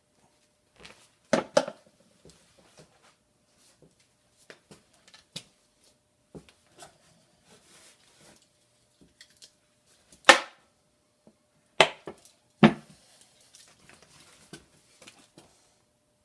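Scattered clicks and knocks from tools and metal parts being handled on a workbench. There is a louder pair of knocks about a second and a half in, and three more sharp knocks between about ten and thirteen seconds.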